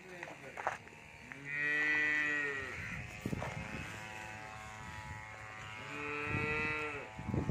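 Cow mooing twice: a long moo about a second and a half in, and a second, shorter moo near the end.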